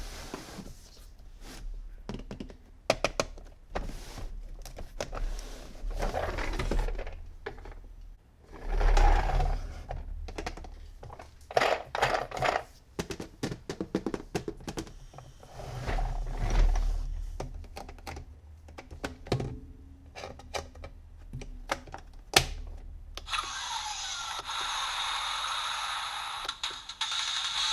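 Hands handling plastic toy vehicles and their packaging: irregular clicks, knocks and rustles. About 23 seconds in, a steadier sound with a rising tone takes over, the start of music.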